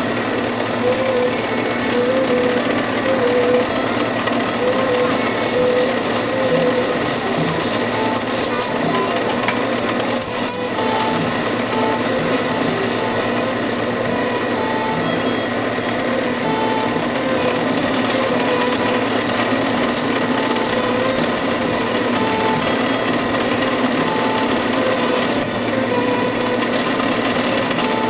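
Belt sander running steadily, its abrasive belt rasping against a knife held to it as the knife is ground and shaped.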